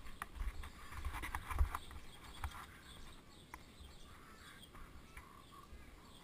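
Bicycles being wheeled on foot over stone paving: irregular clicks, knocks and footsteps, with low bumps from the bikes jolting over the stones. It is busiest in the first two seconds, with the loudest knock about a second and a half in, and quieter after that.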